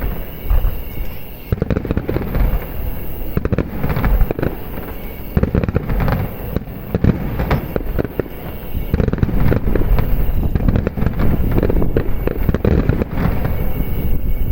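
Aerial fireworks shells bursting in a dense barrage, booms and sharp reports overlapping one another, growing more continuous from about nine seconds in.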